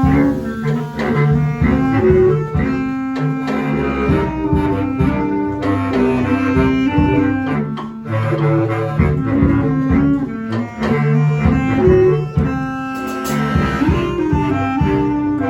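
An ensemble of bass clarinets playing a heavy-metal riff in the low register, with a drum kit hitting hard throughout.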